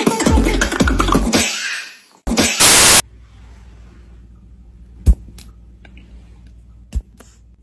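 Group beatboxing fades out in the first second and a half, followed by a brief loud hiss of noise. Then a quiet room with a few sharp plastic clicks from a bottle's flip-top cap being snapped, twice about five seconds in and once near the end.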